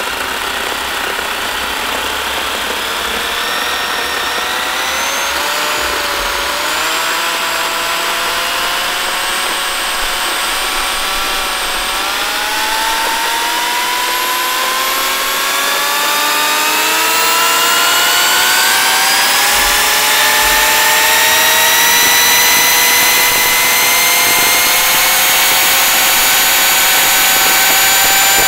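MEEC Tools electric chainsaw's universal series-wound motor, rated 230 V, running overvolted as its supply is raised from about 90 V to over 440 V. Its whine climbs steadily in pitch and grows a little louder as the motor speeds up.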